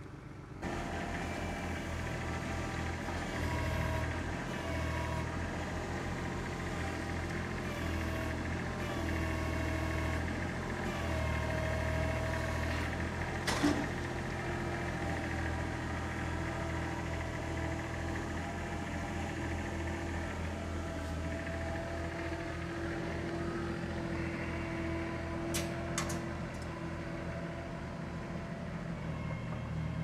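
Kubota compact tractor's diesel engine running steadily while its front-loader forks move logs, with one sharp knock about halfway through.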